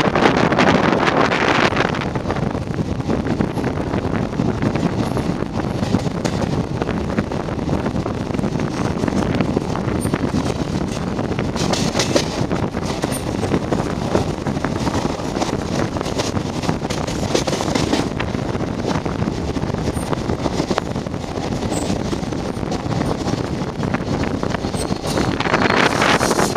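Running noise of an Indian Railways express coach at speed, wheels on rail with wind on the microphone, as it passes a train on the next track. It is louder at the start and again near the end, where a diesel locomotive on the next track goes by.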